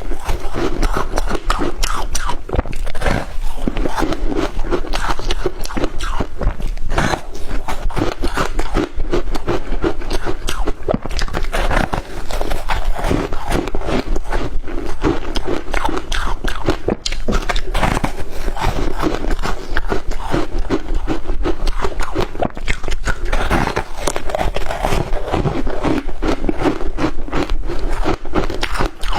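Shaved ice being bitten and chewed close to the microphone, a dense, continuous run of crunches.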